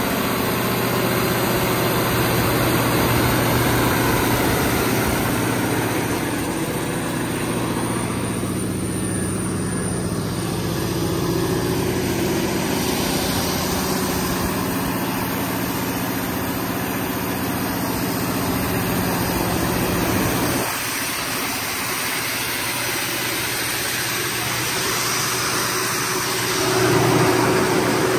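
Cummins KTA50-G3 V16 turbocharged diesel engine of a 1250 kW generator set running steadily, a continuous low drone with a few steady tones in it. It drops a little about two-thirds of the way through and comes up louder near the end.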